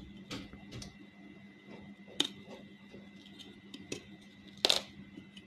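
Kitchen knife cutting through the hard rind of a whole yellow pumpkin, making scattered cracks and crunches as the skin splits. There is a sharper crack about two seconds in and a louder one near the end.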